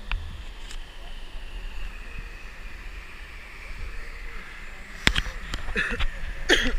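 Waterfall water running steadily, with a low rumble. A few sharp clicks come from about five seconds in.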